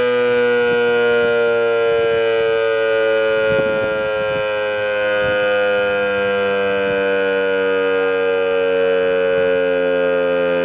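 VEM DS977 electric motor siren sounding the steady test tone of the Czech siren test ("Zkouška sirén"). It is a loud, continuous tone with many overtones that drifts slowly lower in pitch.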